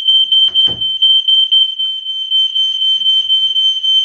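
Smoke alarm sounding its piezo siren while its test button is held down: a loud, shrill, steady high tone with a rapid flutter. A dull knock about three-quarters of a second in.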